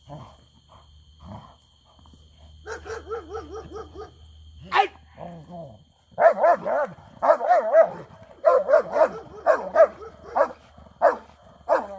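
Shepherd-type dog barking and whining in quick, high-pitched calls that waver in pitch, growing much louder from about halfway through. It is excited and straining toward a handler's bite sleeve.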